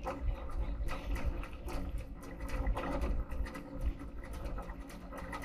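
Wind buffeting the microphone and water rushing along the hull of a sailboat under sail, with irregular small knocks and creaks.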